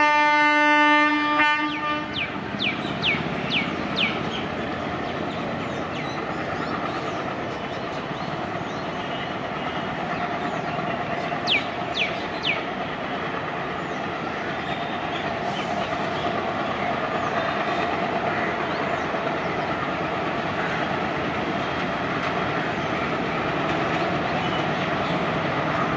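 A WDG 3A ALCo diesel locomotive, with a 16-cylinder ALCO 251 engine, sounds its horn for about a second and a half at the start. Its engine then runs steadily and the train's running noise grows slowly louder as it approaches. There are a few short high chirps a couple of seconds in and again about halfway through.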